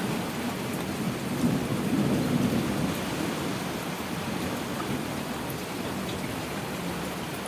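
Heavy rain falling steadily, with a low rumble of distant thunder that swells about a second and a half in and fades off after a few seconds.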